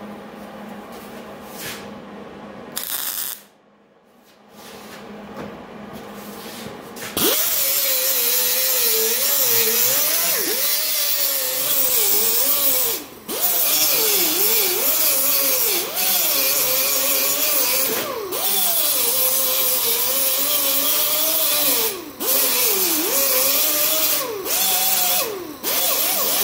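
Small angle grinder grinding weld beads flush on a steel hood panel, starting about seven seconds in after a quieter start. Its whine dips and wavers in pitch as the disc bears on the metal, over a steady hiss, and breaks off briefly several times.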